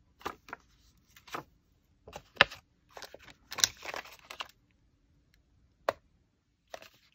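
Short, scattered rustles and clicks of stamp packets being handled and sorted: crinkly plastic and paper. The sharpest click comes about two and a half seconds in, and a longer run of rustling follows just after.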